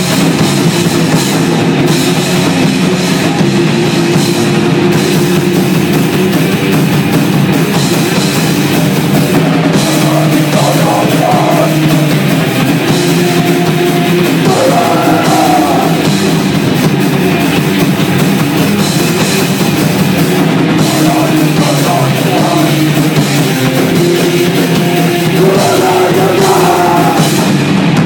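Live blackened crust / d-beat punk band playing loud: distorted electric guitars over a pounding drum kit, a dense, unbroken wall of sound.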